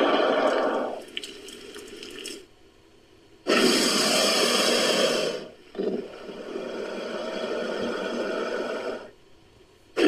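Crocodilian hisses reworked into a black caiman sound effect. A hiss runs on and thins out about a second in, and stops a little before the second mark of two and a half seconds. A louder, brighter hiss comes from about three and a half to five seconds, then a softer, longer one stops about nine seconds in.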